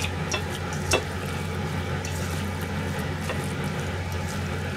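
Wooden spatula and then a hand stirring raw minced meat and chopped onion in a stainless-steel bowl. There are a few light knocks of the spatula on the metal in the first second, over a steady low hum and hiss.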